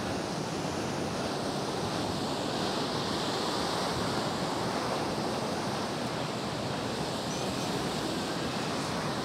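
Steady wind and sea surf noise, an even wash with no distinct events.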